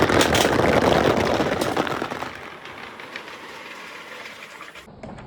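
Many marbles rolling and clattering together down a wooden gutter chute with water running, dense and loud at first, then thinning out and fading after about two seconds.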